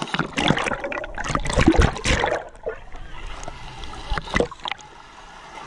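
Shallow seawater splashing and sloshing against an action camera held at the water's surface, in loud irregular bursts over the first two seconds or so and again about four seconds in.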